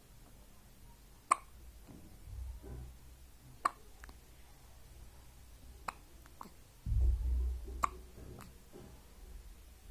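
A newborn baby hiccuping: short, sharp hiccups about every two seconds, four clear ones and a fainter one. A low rumble lasts about a second near the end.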